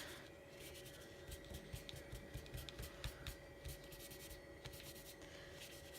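Faint rubbing and scratching of a tool being worked over paper, with small scattered taps and clicks, under a faint steady hum.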